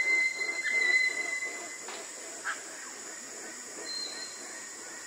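Tanimbar eclectus parrot calling: a loud, shrill, squealing call held for about two seconds, then quieter scattered calls. A steady high hiss runs underneath.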